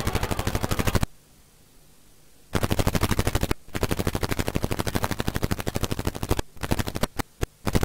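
Rapid, evenly spaced electronic clicking, about a dozen clicks a second, like recording interference or tape-transfer noise. It stops for about a second and a half a second in, then resumes and breaks off in short bits near the end.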